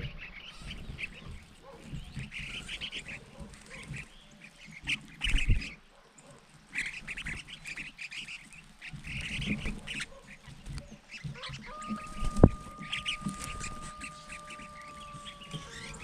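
A flock of crested finchbills calling, with repeated short chattering calls while they feed, among low thumps and knocks close by. In the last four seconds a steady, unwavering tone runs under the calls.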